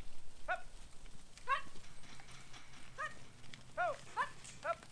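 Boer goats bleating: about six short, rising-and-falling calls, several quickly one after another near the end.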